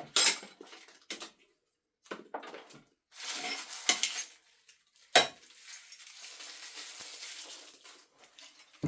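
Hard objects clinking and knocking, with a sharp knock near the start and another about five seconds in, and stretches of hissing, rustling noise between them.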